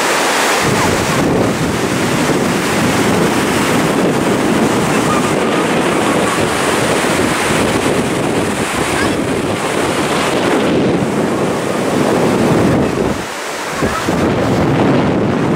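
Ocean surf breaking and washing up on the beach, with wind buffeting the microphone: a steady, loud rush of noise.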